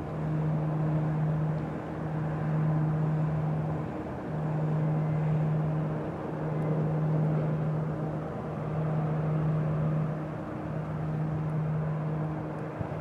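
A passing container ship's engine droning steadily, a low hum that dips briefly about every two seconds, over a broad rushing noise of wind and water.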